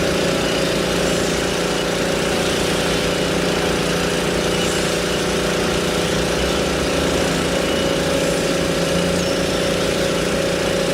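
An engine idling steadily with a constant hum.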